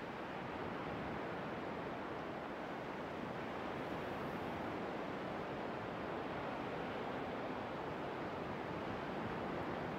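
Steady rush of sea surf and wind, even throughout.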